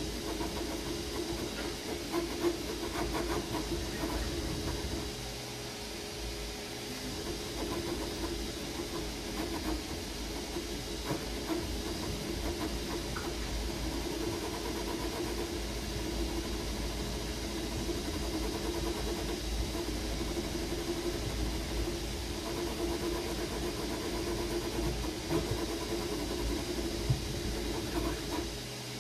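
Ender-3 V3 KE 3D printer running a print: a steady fan hiss under a motor hum whose tones swell and fade as the print head moves.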